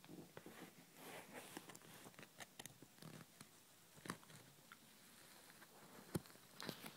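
Faint handling noise from the recording device being moved: soft rustles and small clicks, with sharper clicks about four and six seconds in.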